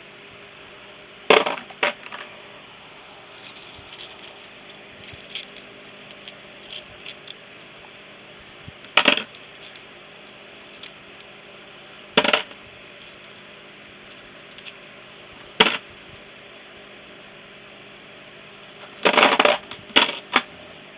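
Small metal tool bits clinking and clattering as they are dropped into a sorting tray: a handful of separate sharp clinks spaced several seconds apart, with faint small ticks between and a quick run of clinks near the end.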